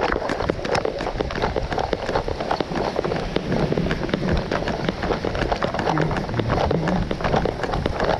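Heavy rain coming down with quick running footsteps and the jostling of a handheld camera, a dense patter of hits over a steady rush.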